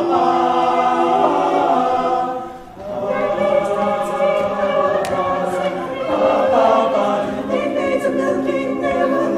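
An a cappella vocal group singing sustained close-harmony chords, with a short break about two and a half seconds in before the voices come back in.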